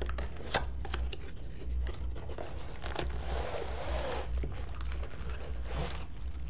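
Packaging rustling and crinkling as the contents of a cardboard tripod box are handled. There are a few small clicks in the first second, a longer rustle about halfway through, and another near the end.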